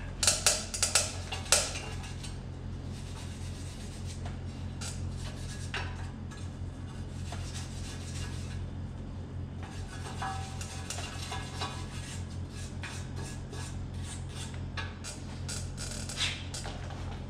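A hammer taps sharply on metal of a John Deere 175 mower's steering column several times in the first couple of seconds. After that come lighter clinks of metal parts being handled over a steady low hum.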